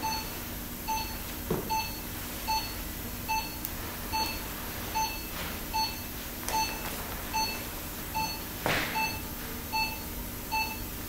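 Patient monitor's pulse oximeter beeping steadily with each heartbeat, a short single-pitched beep about every 0.8 seconds (around 75 a minute), marking the patient's pulse during surgery. A few light clicks and a brief rustle come in between the beeps.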